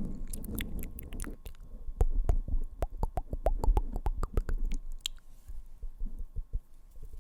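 Close-miked ASMR taps and clicks: fingertips tapping rapidly on the microphone, mixed with mouth clicks, in an irregular patter. Heavier, thumping taps come from about two to five seconds in.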